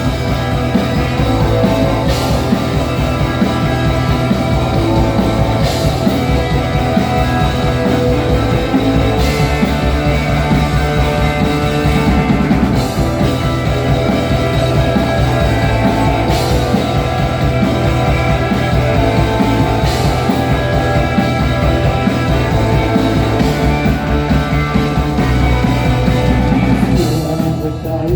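Rock band playing an instrumental passage of a song, with a cymbal crash about every three and a half seconds and a break in the music near the end.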